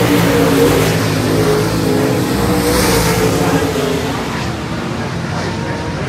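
Pack of USMTS dirt modified race cars running at speed around a dirt oval, their V8 engines overlapping with a wavering, rising and falling pitch. The sound eases off a little in the second half.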